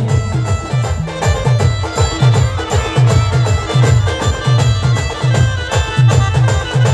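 Band music: a folk dance tune with a melody held over a heavy, steady bass beat of about two strokes a second.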